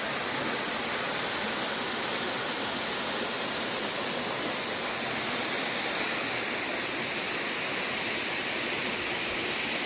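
A small waterfall rushing steadily as it falls down a rock face and splashes into a pool.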